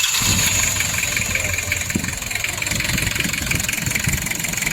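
Mazda diesel engine running just after being started, a little louder for the first second and then settling into a steady idle.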